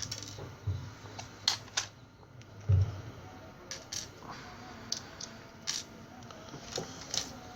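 Cover of a motorcycle digital instrument cluster being opened by hand: scattered irregular clicks and knocks of the housing being worked apart, the loudest a dull thump about three seconds in.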